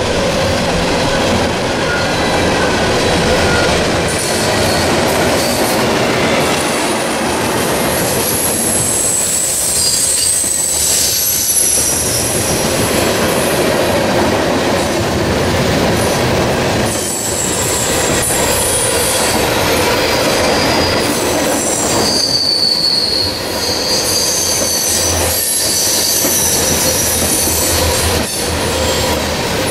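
CSX freight train of boxcars and tank cars passing at high speed: a steady, loud running noise from the wheels and cars, with high-pitched wheel squeals that come and go and occasional sharp clacks over the rail joints.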